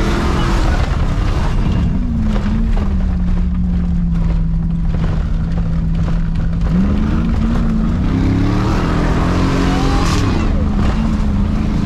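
Engine of a Chevy Silverado demolition derby truck, revving up and easing off twice with a steady pitch held in between, with scattered short knocks.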